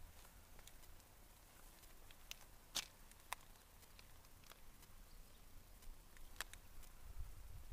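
Near silence: quiet outdoor ambience with a few faint, scattered clicks, the sharpest about three seconds in.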